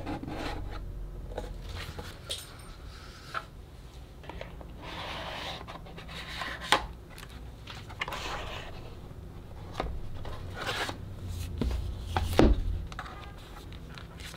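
Rigid cardboard box and its paper-covered contents being handled: card and paper rubbing, sliding and rustling, with a few sharp taps and knocks, the loudest near the end.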